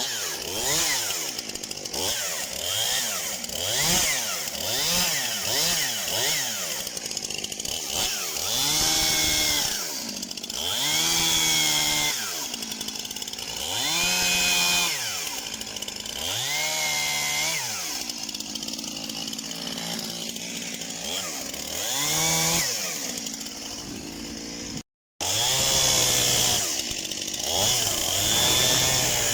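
Stihl MS291 two-stroke chainsaw engine being revved over and over, its pitch climbing and falling back to idle. Short blips come about once a second at first, then longer revs of a couple of seconds each. The sound cuts out for a moment near the end.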